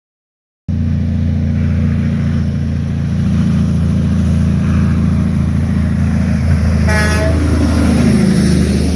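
Heavy vehicle engine running steadily, cutting in abruptly about a second in. A short horn toot sounds about seven seconds in.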